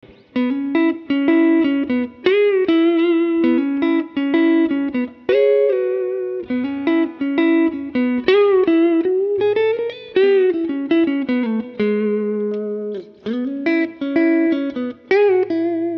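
Electric guitar played solo: a Telecaster with Busch Arctic Wolf Alnico 5 pickups through a Muleskinner tube amp, picking a twangy riff of short repeated notes and double-stops. About ten seconds in a note bends slowly upward, then slides back down into a low note held for about a second.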